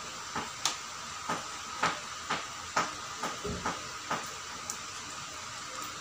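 Pliers twisting steel wire around a nail: about ten short clicks at uneven spacing, stopping a little before the end, over a steady hiss.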